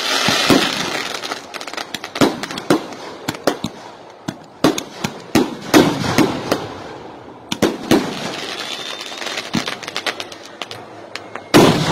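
Aerial fireworks going off: an irregular volley of sharp bangs and crackles, at times several a second. A fizzing hiss fills the first second or so, and the loudest bangs come about six seconds in and near the end.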